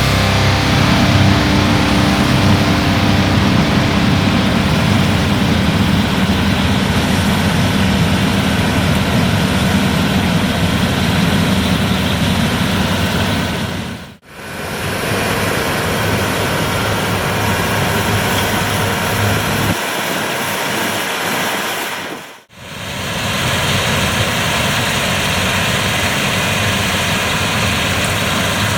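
Claas Lexion 7700 combine harvester running under load while harvesting wheat: a steady, dense machine drone of engine and threshing works. It fades out and back in briefly twice, about halfway and about three-quarters of the way through.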